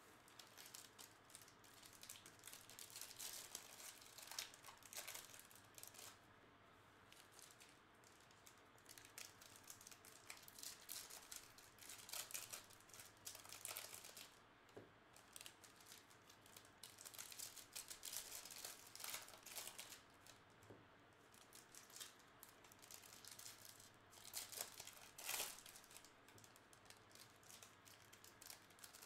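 Faint crinkling and rustling of plastic wrappers and trading card packs being handled, with scattered small clicks and a few louder rustles.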